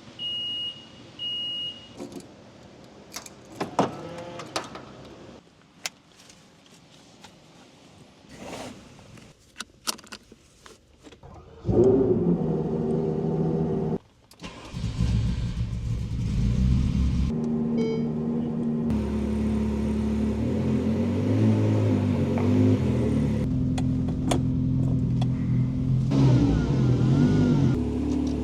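Two short high electronic beeps, then clicks and clunks of someone at the car. About twelve seconds in, a Ferrari engine starts loudly, dips for a moment, then keeps running with its revs rising and falling.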